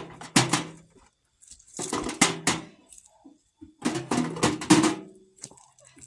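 Glass canning jars clinking and knocking against each other and against a steel pan as they are packed in, in three quick clusters of clinks, some leaving a short ring.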